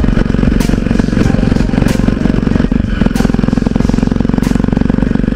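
Jawa 42 motorcycle's single-cylinder engine running steadily at cruising speed while riding, heard from the rider's seat.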